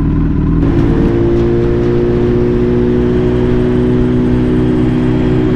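Suzuki Hayabusa's inline-four engine running at a steady pitch while riding, with wind rushing over the helmet microphone that grows louder about half a second in.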